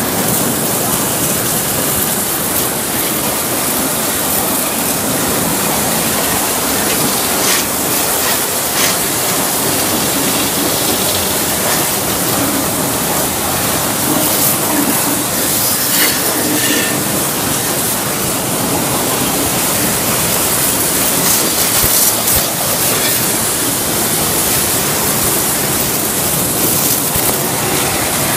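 High-pressure washer jet spraying a large truck's wheel and stainless-steel fuel tank, a loud steady hiss of water spray with splashing against metal and a few brief sharp clicks along the way.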